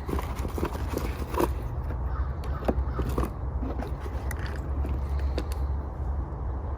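Packaging and kit parts being handled: scattered short clicks and rustles over a steady low rumble.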